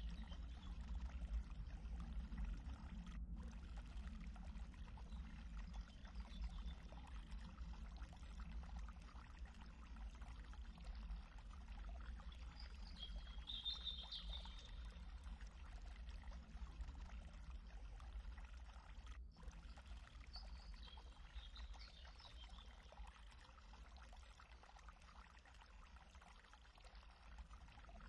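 Faint, steady rushing noise over a low hum, with brief high chirping twice, about halfway and two-thirds through. The sound cuts out for an instant twice.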